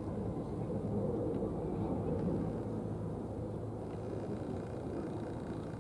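Steady low outdoor background rumble with no distinct events standing out.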